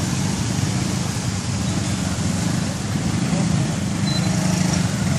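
Many small motor scooters running and creeping along in a jammed street, a steady low engine drone from the crowd of bikes.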